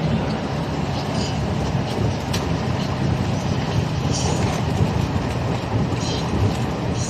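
Vehicle engine running steadily while driving, heard from inside the cab, with road noise and occasional short rattles of the body.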